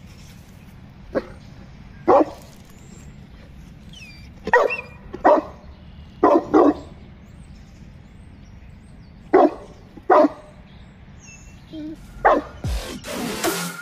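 Young Boerboel barking: about nine short single barks at irregular intervals, some in quick pairs. Electronic music comes in near the end.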